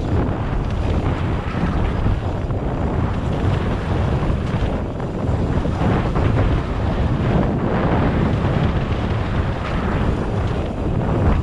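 Wind buffeting the microphone of a camera on a mountain bike riding fast down a dirt trail, over steady tyre noise on dirt and gravel with scattered small clicks and rattles.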